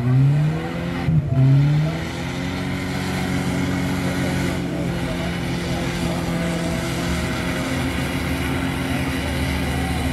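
Small 4x4's engine revving hard in deep mud: the revs climb steeply, dip for a moment about a second in, climb again, then hold at a steady high pitch.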